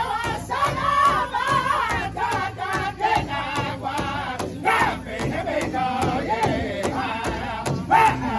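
Powwow drum group: several men singing together in high, wavering voices while beating one large shared hide drum in a steady, even beat. The singing swells louder briefly twice, about five and eight seconds in.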